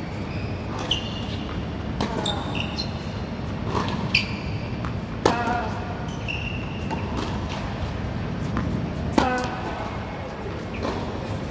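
A tennis rally on a hard court: sharp knocks of the ball off racket strings and court, a few seconds apart and five in all, mixed with short high-pitched squeaks of tennis shoes, in a large covered hall. The loudest strikes come about five and nine seconds in.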